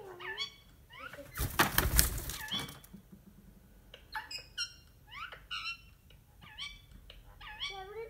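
Indian ringneck parakeet chattering in a string of short calls that bend up and down in pitch, with a loud noisy burst lasting about a second, starting about one and a half seconds in.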